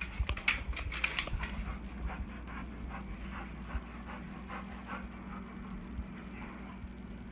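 Doberman panting in quick, even breaths, louder in the first couple of seconds.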